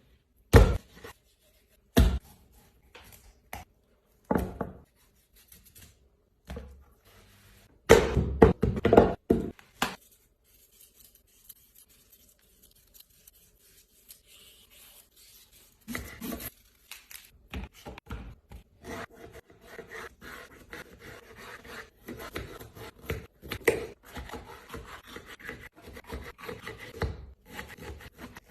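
Kitchen work with utensils: a run of sharp knocks and clatter in the first ten seconds, then, after a quieter stretch, continuous scraping and crackling from about sixteen seconds in.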